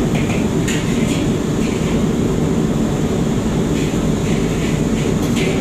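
Steady roar of a commercial kitchen's gas wok stoves and extractor hood, with brief scrapes and clatter of metal on woks now and then.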